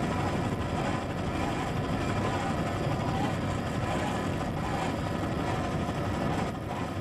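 Racing powerboat's outboard engines running flat out, a steady drone with a slightly wavering pitch over wind and water noise.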